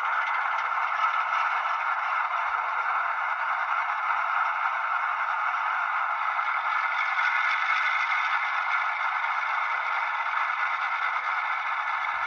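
Onboard sound of an HO scale GE ES44AC locomotive model: the diesel engine running sound played through its small speaker, steady and thin with no bass, as the model runs at a low speed step.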